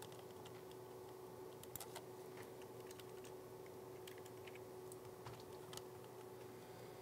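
Faint, scattered clicks, a few at a time, from a trackball mouse's buttons, over a steady low electrical hum.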